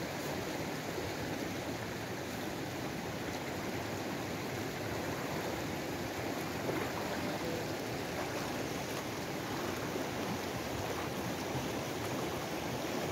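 A fast-flowing, muddy river rushing steadily with an even, unbroken sound.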